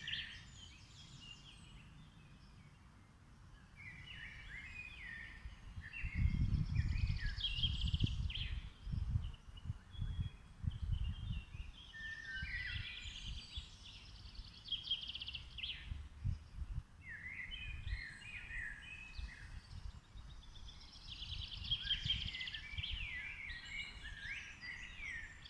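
Songbirds singing in repeated phrases of trills and chirps every few seconds, over an uneven low rumbling noise that starts about six seconds in.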